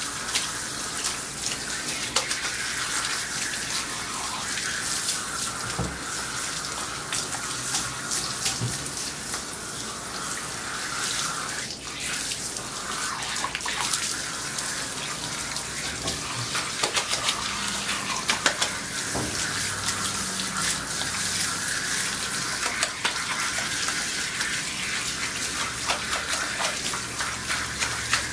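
Water spraying steadily from a handheld bath sprayer onto a lathered dog's coat and splashing down into a grooming tub, with scattered small splashes and drips.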